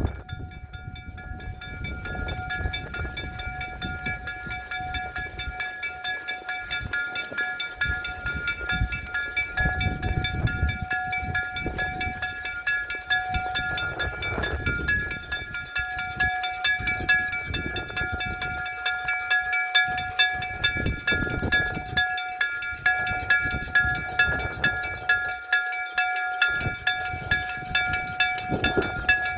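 Japanese level-crossing electric gong (denshō-shiki) bell ringing, a metal gong struck over and over in a fast, even series. The ringing starts about a second in. It is the crossing's warning signal that a train is coming.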